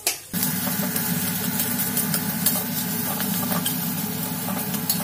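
Spiced mashed-potato filling frying in a wok, stirred and scraped with a flat spatula: sizzling with scattered scraping clicks. A steady low hum runs under it, starting abruptly just after the start and louder than the frying.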